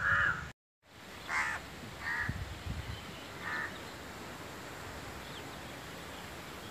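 Crows cawing: one caw at the very start, a brief cut-out, then three single caws about a second apart over a faint steady outdoor background.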